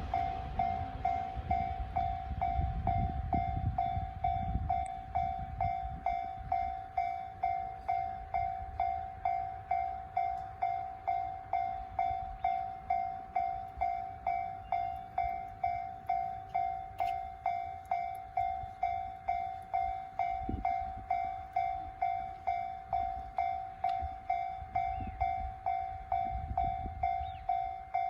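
JR standard electronic level-crossing bell ringing at a steady, even pace. A train's low rumble fades out over the first few seconds.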